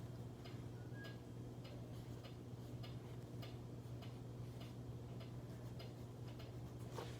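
Light, irregular clicks and taps, a few a second, over a steady low hum.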